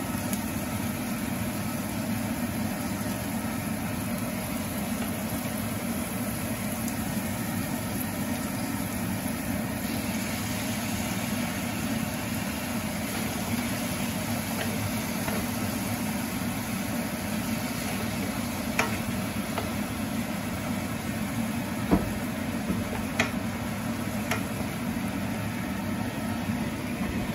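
Onion, garlic and raw chicken pieces sizzling in oil in a nonstick frying pan, the hiss growing fuller about ten seconds in. A wooden spatula stirs the pieces, with a few sharp knocks against the pan in the second half.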